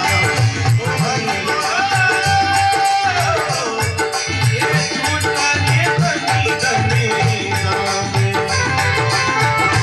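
Marwari devotional folk music (bhajan) with no words: a held melody line that glides in pitch over a steady hand-drum beat and jingling rattle percussion.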